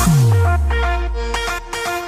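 Electronic dance music at a break in the beat: a deep bass note slides downward and then holds under a few sparse synth notes, with no drums.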